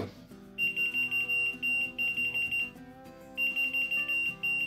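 A whistle-activated key finder keychain beeping, answering a whistle: a high tone pulsed rapidly in two runs of about two seconds each.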